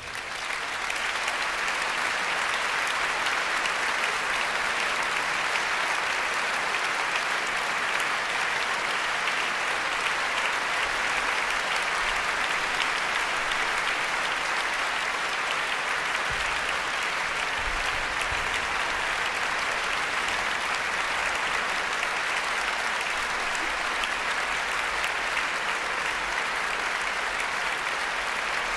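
Large concert-hall audience applauding: dense, steady clapping that swells up from silence within the first second and holds at an even level.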